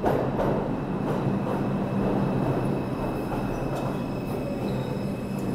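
New York City subway train pulling into the station alongside the platform. Its wheels rumble on the rails, with a faint steady high whine over the noise. The sound jumps louder right at the start as the front of the train draws level.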